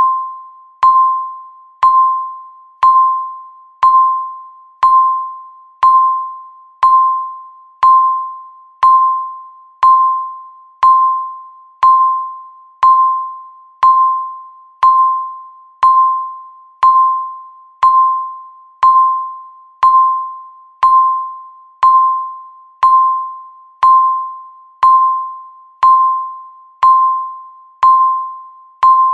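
Countdown timer beeping once a second: a single clear tone with a sharp start that fades away before the next, repeating evenly about thirty times.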